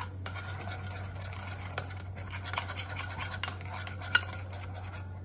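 Cake batter being stirred in a bowl: a steady wet scraping with small clicks of the utensil against the bowl, and one sharper clink about four seconds in.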